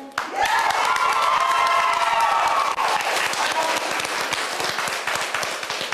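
Audience applauding, with a loud held cheer from voices in the crowd over the clapping during the first three seconds, then clapping alone.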